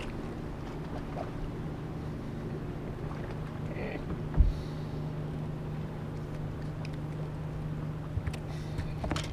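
Steady low electric hum of a boat motor, most likely the bass boat's trolling motor holding position. A single dull thump sounds about halfway through.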